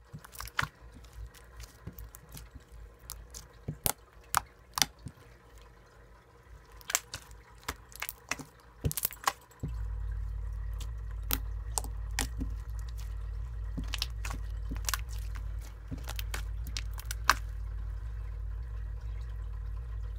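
Soft slime being squished, stretched and pressed by hand against a table: irregular wet clicks and small pops. About halfway through a steady low rumble comes in underneath.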